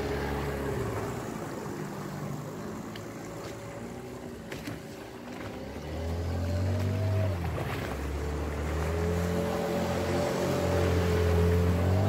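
Small outboard motor on a homemade plastic-drum boat running on the water, getting louder about halfway through as the boat speeds up and throws a wake.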